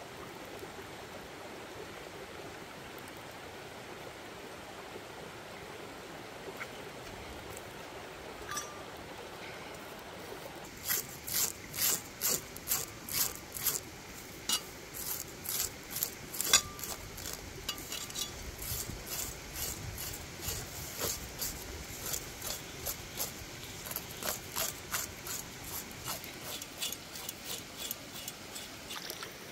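Repeated scraping strokes of a blade over the scaly skin of a fire-singed snake on a rock, about two strokes a second, starting after roughly ten seconds of steady background noise. The scraping strips off the loosened scales.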